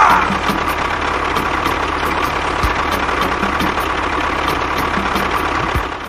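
Miniature model tractor's small motor running steadily, with a mechanical rattle and a faint steady whine on top.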